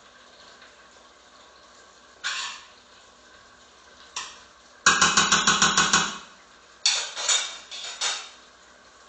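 A cooking utensil knocking and scraping against a pan while sautéing potatoes are stirred: a few single knocks, then a quick run of about ten sharp knocks halfway through, the loudest part, followed by a few more clatters.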